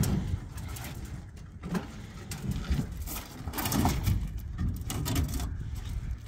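Hollow concrete blocks being lifted, knocked together and set down on a truck's metal bed, with footsteps on the bed: a series of irregular knocks and scrapes.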